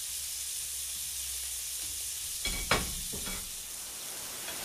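Eggs frying sunny side up in a nonstick frying pan, with a steady sizzle. A few light knocks come about two and a half to three and a half seconds in.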